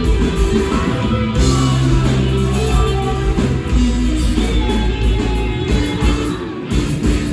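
Rock band playing live at full volume, with guitars ringing over sustained bass notes.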